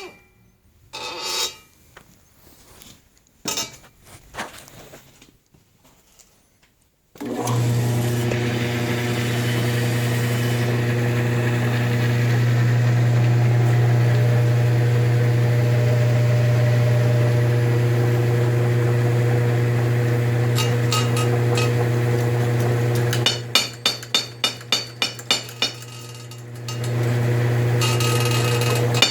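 Homemade motor-driven power hammer: a few scattered knocks, then its electric motor starts about seven seconds in and runs with a steady hum. Near the end the hum drops while the hammer strikes briefly in a quick, even rhythm of about three blows a second, then the motor hum comes back up.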